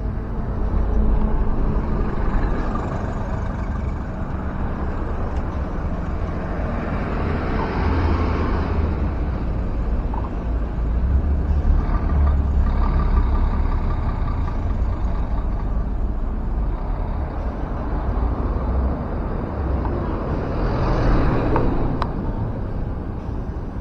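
City buses and other road traffic passing on a street: a steady low engine rumble that swells about four times as vehicles go by.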